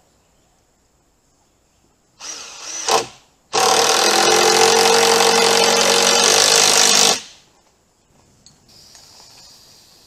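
Cordless drill driving a screw into the wooden corner of the collector frame: a short spin-up about two seconds in, then a steady run of about three and a half seconds before it stops. Near the end a faint steady hiss from an aerosol spray can begins.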